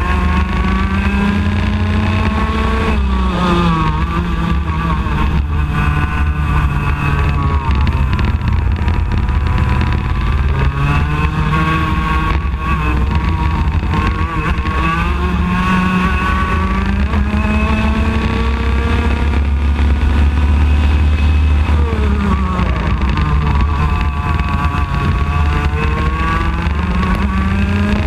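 IAME X30 125cc single-cylinder two-stroke kart engine at racing speed, its revs dropping into corners and climbing again under full throttle several times.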